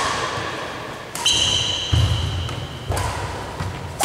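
Badminton rackets striking a shuttlecock in a rally, sharp hits about a second in, about three seconds in and again at the end, each echoing in the large hall. A high ringing tone follows the first hit, and low thuds of footwork on the wooden court come in between.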